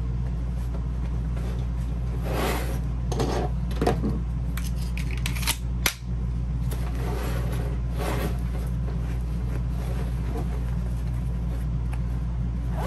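5.11 4-Banger sling bag being handled: intermittent rustling and scraping, with a sharp click about six seconds in, over a steady low hum.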